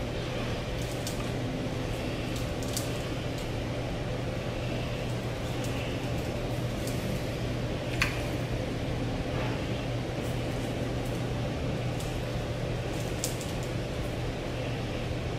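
Steady low mechanical hum under a few light clicks and taps from a plastic seasoning shaker being handled and shaken, with one sharper click about eight seconds in.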